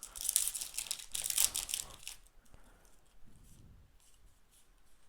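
Foil trading-card booster pack wrapper crinkling and tearing as it is handled and opened, dense for about the first two seconds, then only faint rustles.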